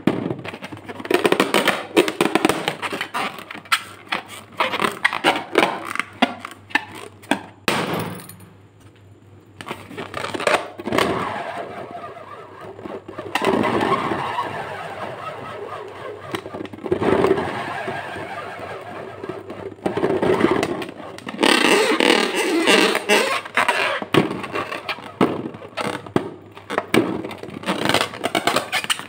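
Hands squeezing and rubbing a filled latex balloon, giving a dense run of crackles and scrapes, with a short lull about eight seconds in.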